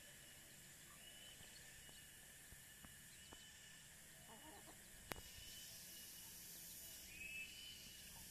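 Near silence: faint outdoor ambience with short high chirps repeating every second or so and a single sharp click about five seconds in.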